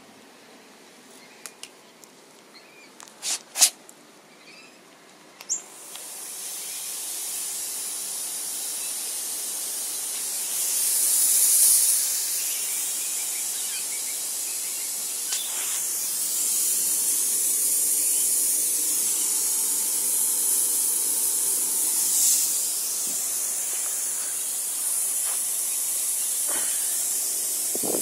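A refrigerator compressor rigged as an air compressor, with air hissing steadily from it. The hiss starts about six seconds in and swells twice, after a few sharp clicks at the start.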